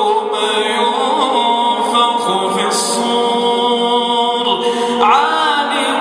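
A male reciter chanting the Quran in Arabic, unaccompanied: one voice holding long melodic notes, with ornamented turns about a second in and again near the end.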